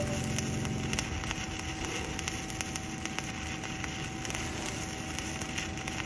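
Stick (shielded metal arc) welding arc on steel pipe, crackling steadily with rapid irregular pops as the electrode burns.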